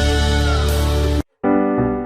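Background music that cuts off abruptly just over a second in, followed after a brief silence by a different piano-led piece starting.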